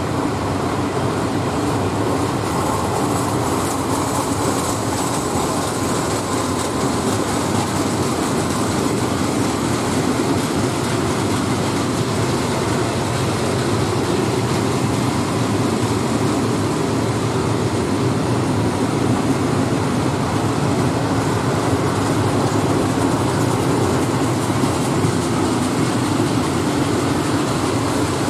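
Loaded open coal wagons of a freight train rolling past on the rails: a steady rumble of wheels on track, with some rail clatter.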